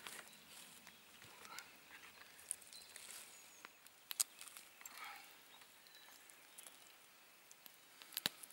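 Faint scraping of a knife on a clay-baked roast and its hardened clay shell, with a few sharp clicks as pieces of the baked clay are knocked and pried off.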